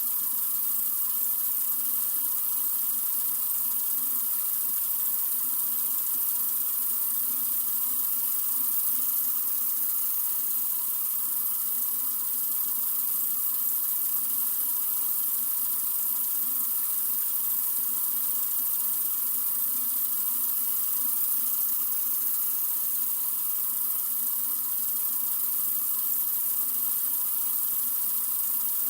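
Sink faucet running in a steady stream, a constant hiss of water with no change in flow.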